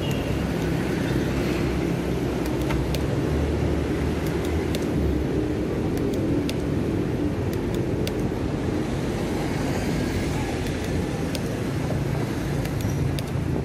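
Road traffic heard from a moving bicycle: the steady hum of vehicle engines running close by over tyre and road noise, with scattered sharp clicks.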